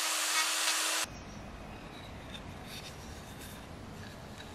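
A rotary tool fitted with a sanding drum runs with a steady whine while grinding into a wood carving. The sound cuts off abruptly about a second in, leaving a faint background hiss with a few light ticks.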